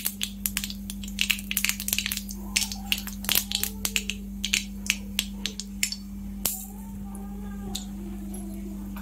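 Seeds spluttering and popping in hot oil in a kadai, a rapid, irregular crackle of sharp pops that thins out after about six seconds, over a steady low hum.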